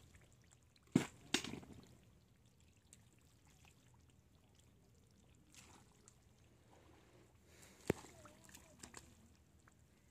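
Wet mud and shallow water splashing and squelching as hands dig in a muddy creek bed, with two sharp wet slaps about a second in and another about two-thirds of the way through.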